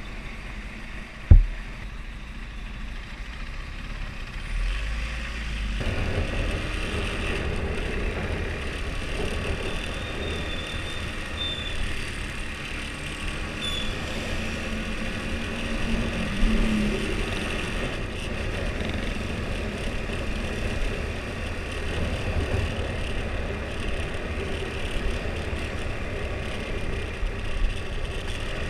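Husqvarna Svartpilen 401's single-cylinder engine on stock exhaust, running while riding, with road and wind noise. It is quieter for the first few seconds, then louder from about six seconds in. One sharp knock comes about a second in.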